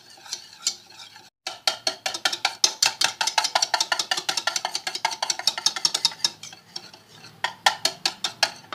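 Ghee being beaten by hand in a bowl: a utensil clicking rapidly and steadily against the bowl, several strokes a second, with a brief break about a second and a half in.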